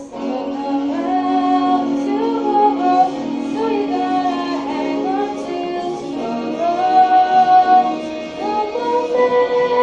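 A woman singing a slow ballad over sustained instrumental backing, with a long held low note under the melody.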